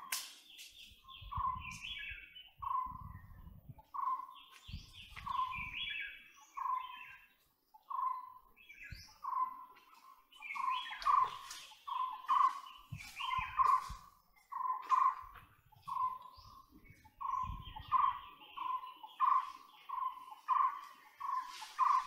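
White-bellied woodpecker calling: a long series of short, loud notes, about one and a half a second, coming closer together in the last few seconds. A few low thumps sound in between.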